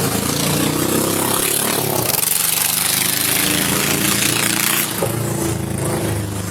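A motor vehicle's engine running close by, steady with small shifts in pitch.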